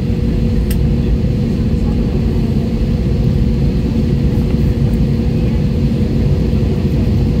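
Cabin noise of an Airbus A320neo taxiing: its Pratt & Whitney geared turbofans give a steady low rumble with an even hum, holding level without spooling up.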